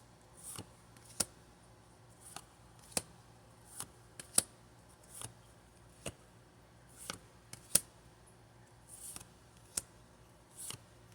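Pokémon trading cards being handled and flipped through one at a time: irregular sharp clicks and snaps of card stock, with a few soft swishes, about one or two a second.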